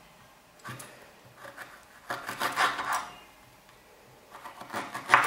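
Kitchen knife cutting fresh ginger on a wooden chopping board: irregular short scraping strokes of the blade against root and wood, busiest about two seconds in, with a sharper stroke near the end.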